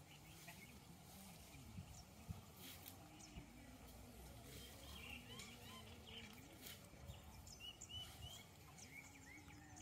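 Near silence: faint outdoor ambience with small birds chirping a few times, mostly in the second half.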